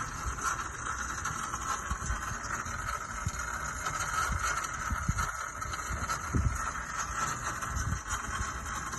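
Starter motor still engaged and spinning after the engine has started, a steady high whine over the running engine. A defective solenoid is keeping the starter from disengaging.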